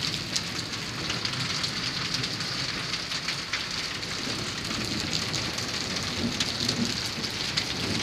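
Rain falling steadily, with many small drop ticks: a downpour that has eased off.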